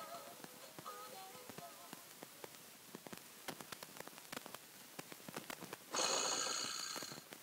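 Fisher-Price Laugh & Learn Puppy's Activity Home toy: the last notes of its electronic tune, then a run of light plastic clicks, then near the end a loud ringing electronic sound effect lasting just over a second as the roller at the bottom right of the house is turned.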